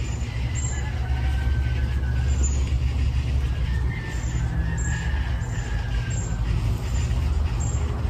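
A steady low rumble of outdoor background noise.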